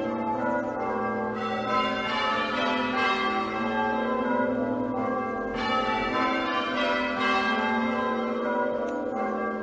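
Church bells being change-rung in a quarter peal, half-muffled as a mark of mourning. Many overlapping ringing tones in a steady, continuous sequence.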